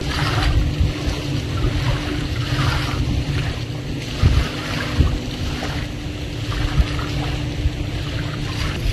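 An engine running steadily: a continuous low rumble with a constant hum over it, and a few faint knocks.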